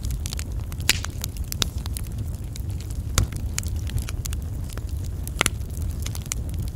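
Wood fire burning: a steady low rumble of flame with scattered sharp crackles and pops at irregular intervals, a few of them louder than the rest.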